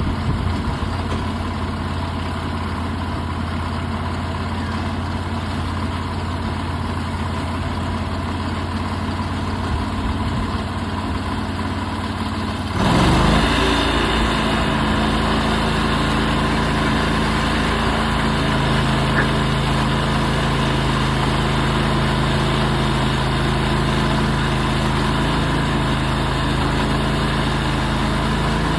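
Portable sawmill's engine running steadily. About halfway through, the sound jumps suddenly louder and fuller and stays at that level.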